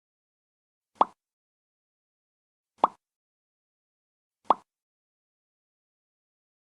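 Three short, sharp single coughs, spaced a second and a half to two seconds apart, with silence between them.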